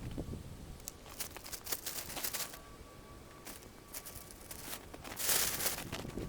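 Irregular rustling and crinkling with small clicks and knocks, as of gear being handled, louder for about a second near the end.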